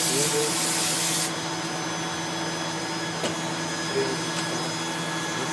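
Pratt & Whitney PT6A turboprop engine of a Cessna Grand Caravan being motored on its starter, ignition off, for the drying run after a compressor wash. A loud rush of air cuts off suddenly about a second in, leaving a steady whine from the still-spinning engine.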